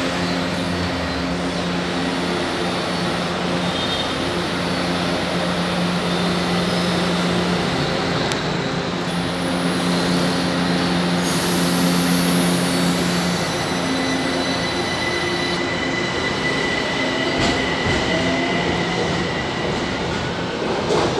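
São Paulo Metro trains in the station: a steady electric hum with several held low tones over running noise, and wheels squealing. In the second half a high-pitched squeal holds for a few seconds, and near the end tones rise in pitch as a train moves.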